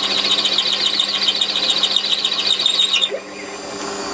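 A 20mm milling cutter turning in a lathe chuck squeals high and shrill as it bores through metal, the tone pulsing rapidly like chatter. About three seconds in the squeal stops suddenly, leaving the lathe's steady running hum.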